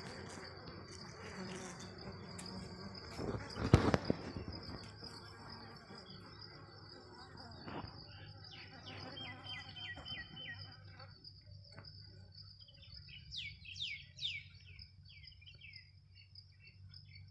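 A steady high insect trill, like a cricket, runs throughout over a low steady hum, with a loud knock about four seconds in. Birds chirp in quick repeated notes around the middle and in sweeping calls near the end.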